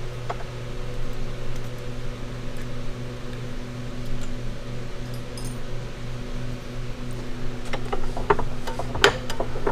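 A steady mechanical hum throughout. Near the end come a run of short, light metal clicks and knocks as the Showa fork damper is handled.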